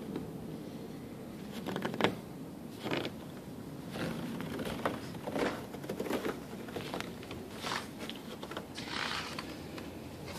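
Irregular crunching and creaking of footsteps on snow close by, a step every half second to a second, the sharpest about two seconds in.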